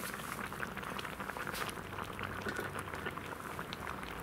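Braised pork chops and vegetables in broth simmering gently in a cast-iron Dutch oven over a gas burner turned low: a soft, steady bubbling made of many small irregular pops.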